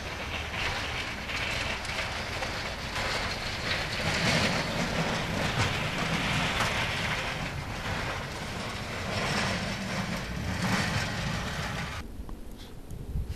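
Snowplow truck going along the street, its plow blade scraping the road under a low engine rumble that swells and eases; the sound cuts off suddenly about twelve seconds in.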